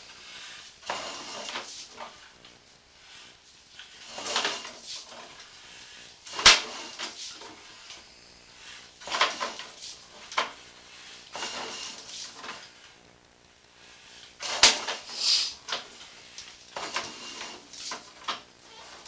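Sewer inspection camera's push cable being pulled back out of a cast iron drain line: irregular scraping and clattering, with a sharp knock about six and a half seconds in and another near fifteen seconds.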